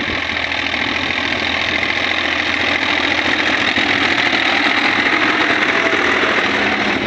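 Deutz-Fahr tractor's diesel engine running steadily under load, pulling a rotavator through dry soil.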